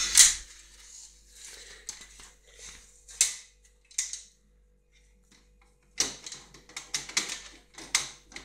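A walnut in its shell clacking and skittering on a ceramic tile floor as kittens bat it, with their paws scrabbling on the tiles. There is a sharp knock at the start, single knocks around three and four seconds in, then a quick flurry of clicks and scrapes from about six seconds in.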